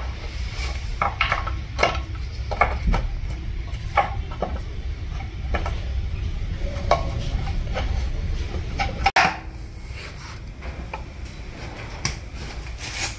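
Aluminium CVT valve body being set onto the transmission case and shifted into place by hand: irregular metallic clinks and knocks, over a low steady hum.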